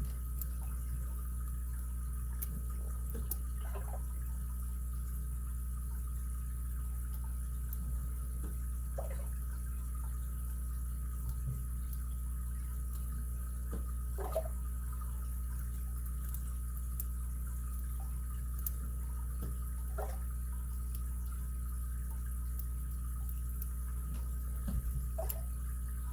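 Faint, irregular small clicks of a lock pick working the pins inside an ABUS 83CS/55 padlock, a few seconds apart, over a steady low hum.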